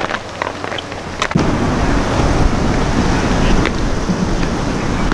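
Wind buffeting the camera microphone: a steady low rush that starts abruptly about a second and a half in. Before it, faint outdoor voices and light clicks.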